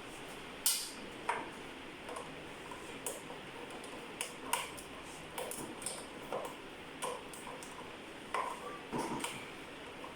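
Irregular series of small, sharp clicks and taps from hard objects being handled, about fifteen in all with the loudest near the start, over a steady low hiss.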